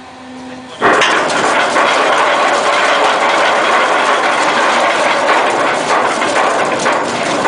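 Ship's anchor chain running out through the windlass and hawse pipe as the anchor is let go: it starts suddenly about a second in, then a continuous, loud clattering of heavy chain links.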